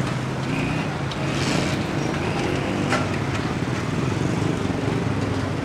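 Street traffic: a motor vehicle engine running steadily close by over a constant hum of street noise.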